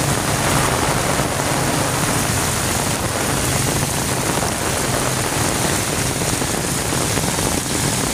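Heavy rain pouring onto a flooded street, a steady dense hiss of rain hitting water and pavement. Underneath it runs a low hum of motorbike and car engines in the traffic, strongest near the start and near the end.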